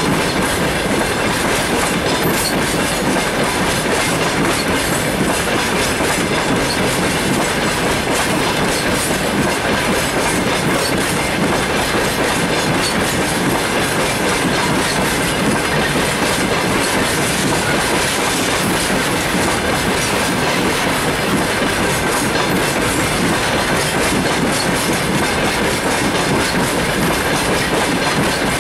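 Freight train of open gondola wagons rolling past, a steady rumble and rattle with the wheels clacking rapidly over the rail joints.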